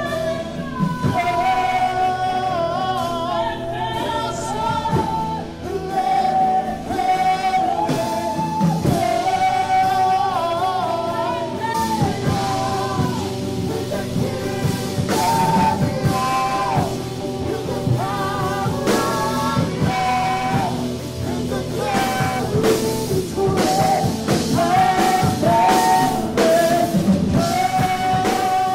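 Church worship band playing: a woman singing the lead into a microphone over guitar and drums.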